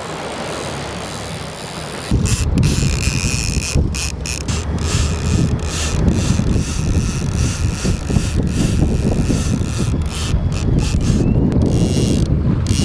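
Trolling reel's drag clicking and buzzing as a hooked salmon pulls line off. It starts suddenly about two seconds in and runs on loud and fast, with wind buffeting the microphone.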